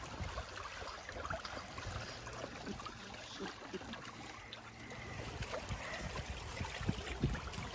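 Water trickling and gurgling along the hull of a small sailing boat under way, with a faint low rumble underneath and small scattered ticks.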